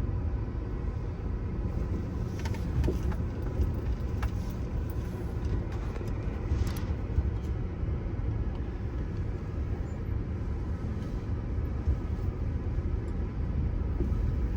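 Car moving slowly at parking speed, heard from inside the cabin: a steady low engine and road rumble, with a few faint clicks.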